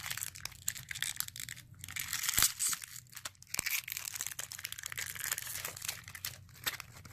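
Small plastic packet from an LOL Surprise toy being handled and torn open: irregular crinkling and crackling with scattered sharp clicks.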